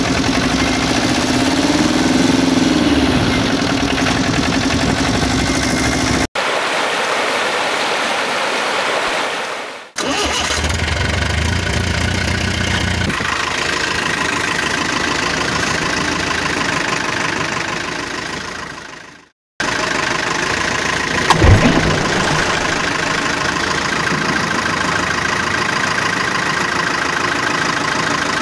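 Truck engine sound effects, running and idling in several clips joined with abrupt cuts. They include a few seconds of hiss about a quarter of the way in and a sudden loud thump about two-thirds through.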